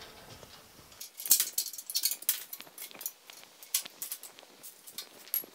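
Metal clamps being loosened and lifted off a sheet-metal panel clamped to steel tubing: a run of irregular light metallic clicks and clinks, with one heavier knock about a second in.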